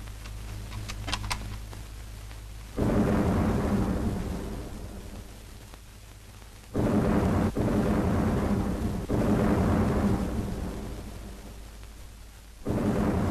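Three heavy explosions, each starting suddenly with a boom and fading slowly into a long, deep rumble, about three, seven and twelve and a half seconds in, with a couple of sharp cracks in between.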